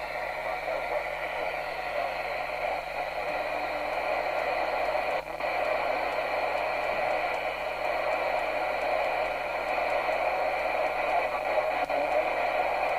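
Midland 77-104GTL FM CB radio receiving an empty channel: a steady, band-limited hiss of FM receiver noise from its speaker, with a brief dip about five seconds in.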